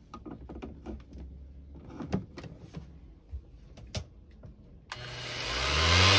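Faint clicks and knocks of a plug and cord being handled. Then, about five seconds in, an electric random orbital sander switches on and its motor spins up with a rising hum and a steady hiss against a wooden hatch cover. The sander is powered through a newly hardwired inverter that is being tested.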